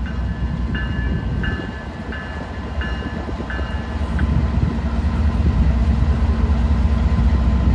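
Norfolk Southern freight train's diesel locomotives rumbling low as the train starts off, the rumble growing louder about halfway through. Over it a bell rings steadily, about three strokes every two seconds, and stops a little past halfway.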